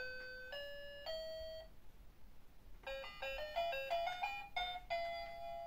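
Electronic toy piano sounding bright, beep-like notes as its keys are pressed: three held notes one after another, then a quick little tune of short notes in the second half.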